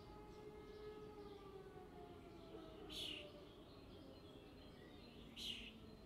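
Faint, distant civil-defence sirens sounding a test alarm, their tones slowly falling in pitch. Two short bird chirps come about three seconds in and near the end.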